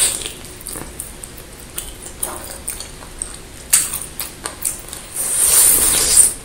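Close-miked chewing of beef rib meat: a run of short wet smacks and clicks of the mouth, with a louder, drawn-out wet noise lasting about a second about five seconds in.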